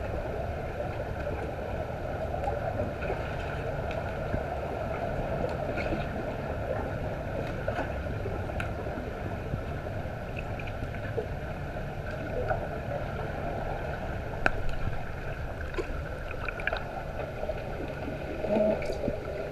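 Muffled underwater sound of an underwater hockey game heard from below the surface of a pool: a steady low rumble of moving water and swimmers, with scattered faint sharp clicks and knocks.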